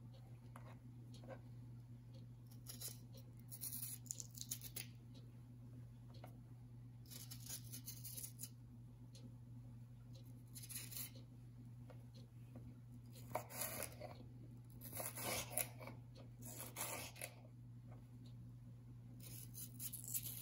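Kitchen knife slicing through red bell pepper on a wooden cutting board: short, scattered crisp cutting strokes, several seconds apart, over a steady low hum.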